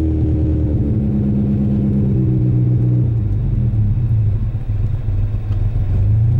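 Lotus Esprit engine idling after a cold start, its idle speed falling slowly, then stepping down clearly about three seconds in.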